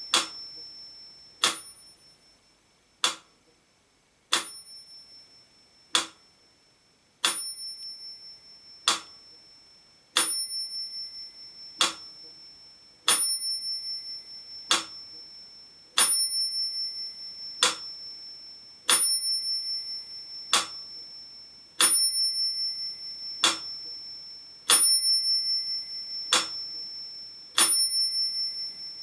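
Mechanical pendulum metronome ticking at 40 beats a minute, a sharp click about every one and a half seconds. A small bell rings on every second beat, marking two beats to the bar.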